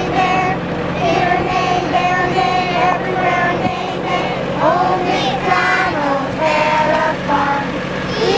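A group of young children singing together in held, sliding notes, over a steady low hum.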